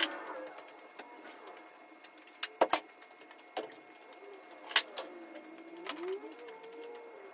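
Sharp workshop knocks and clicks: a loud close pair about two and a half seconds in and another near five seconds, over a faint wavering tone that glides up and down toward the end.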